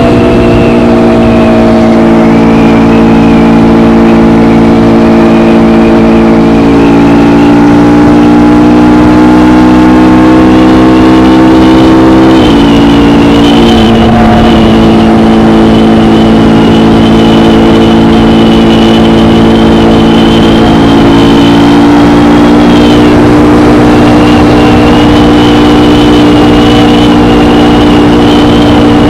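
KTM Gen 3 Duke's single-cylinder engine through its stock exhaust, heard while riding at a cruise. The engine note eases slowly downward, breaks abruptly about twelve seconds in, then holds steady. A thin high whine runs alongside.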